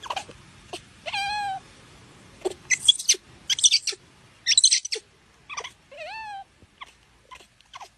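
Baby macaque giving two short, plaintive coo calls, one about a second in and one rising then falling near 6 s, with a quick run of short, sharp high sounds from it in between.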